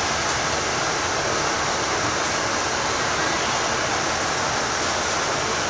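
Steady, even rushing noise inside a moving London bus: road and cabin noise with no distinct engine note or other events.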